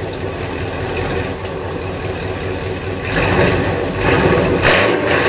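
2010 Chevrolet Camaro SS 6.2-litre V8 with Borla long-tube headers and a straight-piped exhaust, idling and then revved in three quick blips over the last two seconds.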